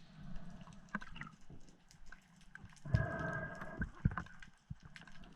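Underwater sound: scattered clicks and crackles, with a brief buzzing, pitched sound about a second in and a longer one from about three seconds in.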